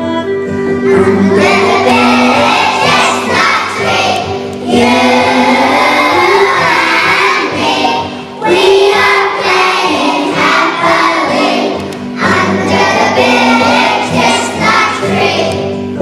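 A group of young children singing together as a choir over instrumental backing music. The singing comes in about a second in and runs in phrases with brief pauses.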